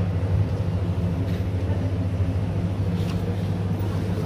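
Steady low mechanical hum, like an idling engine or running machinery, with a few faint clicks.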